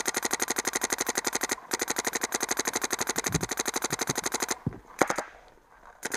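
Paintball marker firing in rapid strings at about twelve shots a second, the electronic trigger ramping at the PSP 12.5 balls-per-second cap. The strings pause briefly, stop about four and a half seconds in, and a single louder knock follows.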